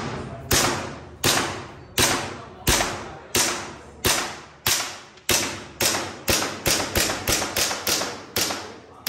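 A red Glock-style airsoft pistol firing a long string of about seventeen shots, each crack echoing briefly in the range hall. The shots come at a steady pace at first and get quicker about halfway through.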